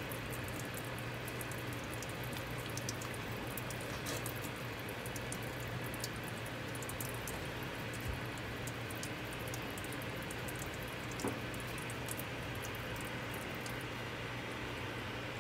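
Metal spatula working wet dental stone in a rubber mixing bowl and into an alginate impression: soft scraping with many small clicks, over a steady low hum.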